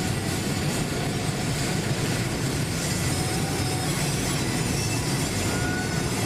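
Steady low rumble and rushing of road and wind noise inside a moving car, even in level throughout.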